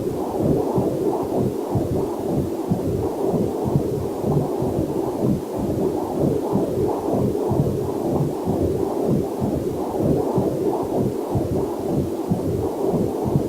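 Fetal Doppler heart monitor giving a fast, even whooshing pulse, about two to three beats a second, with a faint waterfall hiss mixed in underneath.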